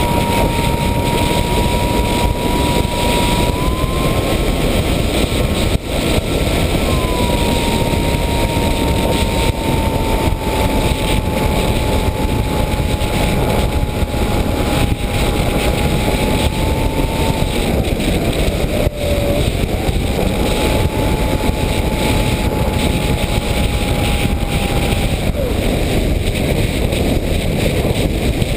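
Electric motor and propeller of an FPV model aircraft whining over a steady rush of wind noise. The whine's pitch holds fairly level, drops sharply just past halfway and comes back, then fades out near the end.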